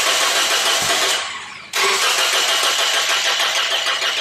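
A four-cylinder car engine being cranked by its starter in two goes, a short one and then a longer one, without catching. It cranks but won't start because the injectors are getting no pulse.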